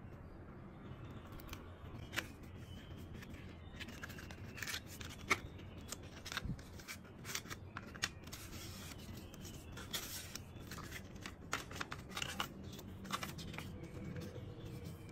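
Hands handling the parts of a smartphone box: cardboard insert and paper leaflets rustling and scraping, with scattered light clicks and taps, busiest through the middle.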